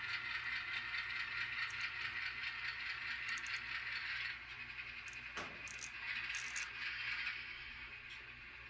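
HO scale Atlas RS3 model diesel locomotive running slowly along the track, a steady running noise with a light rattle of wheels on rail. It gets quieter about four seconds in as the locomotive eases up to a tank car, with a few faint ticks after that.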